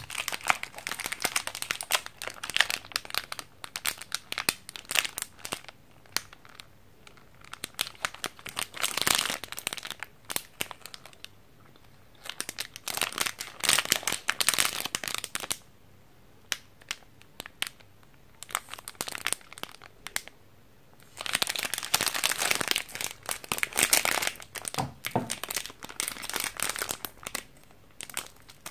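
Plastic candy-wrapper film crinkling as it is handled in the hands, in several stretches of a few seconds with quiet pauses between, the longest pause about two-thirds of the way through.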